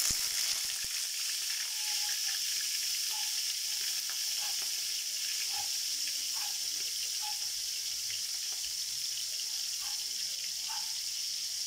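A slice of pork frying in hot cooking oil in a wok: a steady sizzle with scattered small pops.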